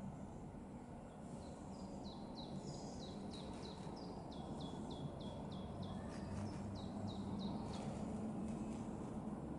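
A songbird singing a fast run of short notes, each falling in pitch, about three or four a second, over steady low background noise. The song stops about two seconds before the end.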